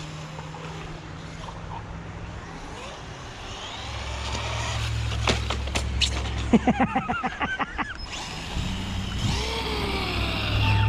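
Bezgar HM124 1/12-scale brushless RC car being driven, its motor whine rising and falling in short glides. A quick stuttering run of pulses comes just past the middle.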